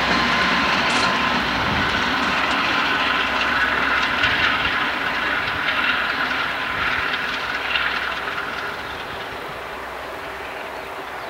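Two Amtrak GE Genesis diesel locomotives running light past close by, engines and wheels on the rails. The sound fades from about eight seconds in as they move away.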